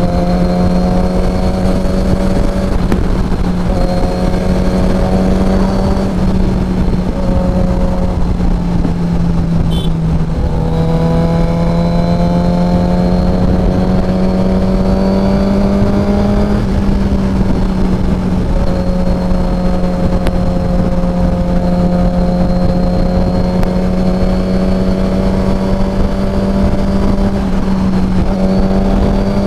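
Suzuki GSX-R 1000 inline-four engine running at highway cruising speed, its note steady and slowly rising and falling with the throttle, dipping once about ten seconds in before climbing again, over a steady rush of wind.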